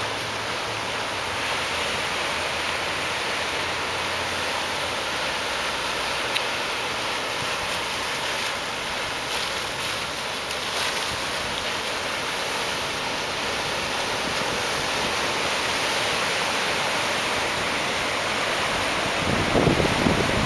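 Ocean surf: a steady wash of waves breaking and rolling in. Near the end, wind gusts start hitting the microphone.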